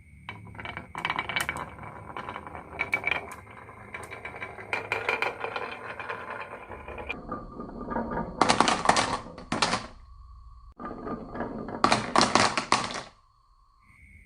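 Marbles rolling and clattering down a wooden HABA marble run, a dense stream of clicks and knocks. The clatter grows louder and denser about eight seconds in and again about twelve seconds in, then stops about a second before the end.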